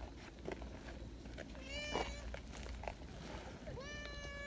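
Stray cat meowing twice, about two seconds apart: a short meow, then a longer one that rises at the start and is held steady.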